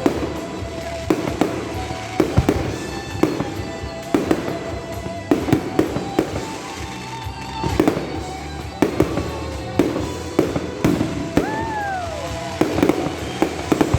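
Fireworks salute going off: a dense, irregular run of sharp bangs, several a second. About eleven and a half seconds in, a tone rises briefly and then slides down over the bangs.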